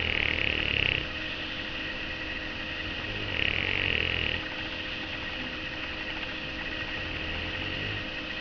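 Bulldog snoring in its sleep: a snore about every three and a half seconds, two louder ones near the start and about halfway, and a softer one near the end.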